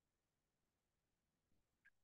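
Near silence: a pause in a video call, with only a faint tiny click near the end.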